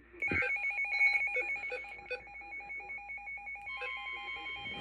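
Weather alert radio sounding its electronic alarm: rapid, evenly pulsed beeps, loudest at the start. Near the end a steady high tone joins in, the NOAA Weather Radio warning alarm tone that comes before a new tornado warning is read.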